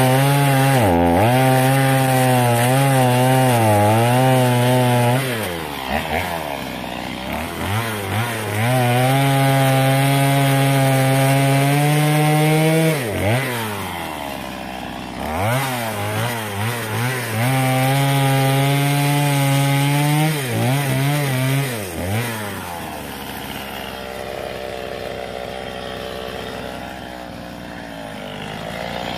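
Two-stroke chainsaw cutting through a log at full throttle in three long spells, its pitch sagging and wavering under load, dropping to idle between cuts. It idles for the last several seconds.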